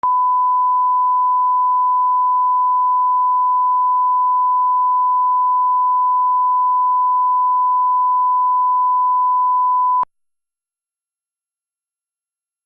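Steady electronic test tone: one pure, unchanging pitch held at a constant level, cut off abruptly about ten seconds in.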